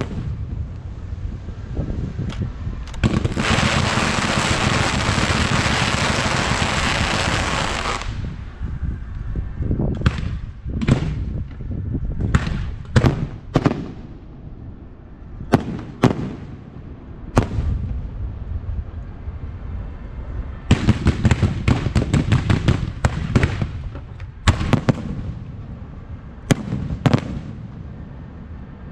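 Aerial fireworks going off. About three seconds in comes some five seconds of dense crackling, followed by separate sharp bangs, and past twenty seconds a fast run of bangs.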